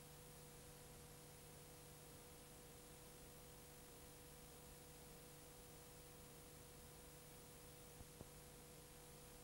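Near silence: a faint steady hiss with a low hum, and two faint ticks about eight seconds in.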